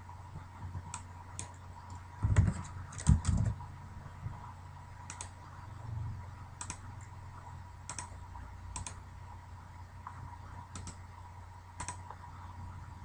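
Computer keyboard keys typed in a quick burst of about five strokes a little over two seconds in, then single clicks spaced a second or so apart through the rest, over a steady low electrical hum.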